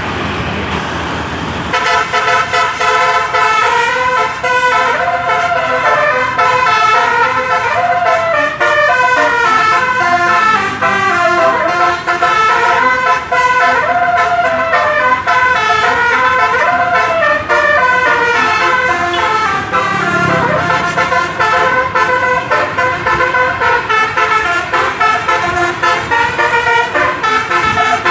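An 18-note 'telolet' bus horn playing a long, fast run of melody, its notes changing pitch continuously. It starts about two seconds in, over a rising rush of bus noise.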